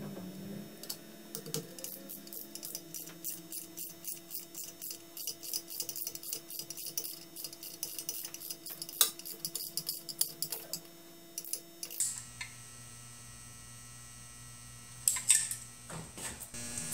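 Socket ratchet clicking quickly and evenly, about four clicks a second, as the rear crankshaft seal housing bolts are drawn down on a Jaguar XK6 engine block, over a steady low hum. The clicking stops about twelve seconds in, and a few more clicks come near the end.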